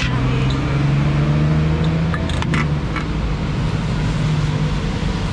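A vehicle engine running steadily at a low, even pitch, with a few sharp taps a little over two seconds in.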